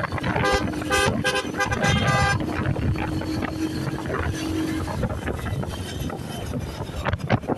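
A vehicle horn tooting in a quick run of about six short beeps for the first two seconds or so, over steady road traffic noise heard from a moving motorbike.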